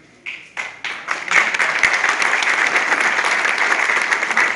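Audience applauding: a few scattered claps at first, swelling into full, steady applause about a second in.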